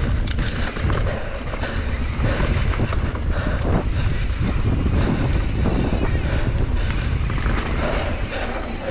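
Wind rushing over the microphone of a mountain biker's camera at riding speed, with a low rumble and a few sharp clicks in the first second.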